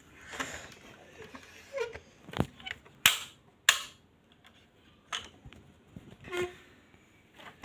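Doors of a die-cast metal Mercedes-Benz Brabus G65 model car being pushed shut: a sharp click about two and a half seconds in, then two louder snaps close together, followed by a few fainter taps as the model is handled.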